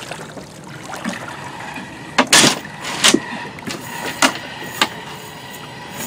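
A handful of sharp knocks and clatters in a small fishing boat, the loudest about two seconds in and the rest spaced a second or so apart, over steady background hiss.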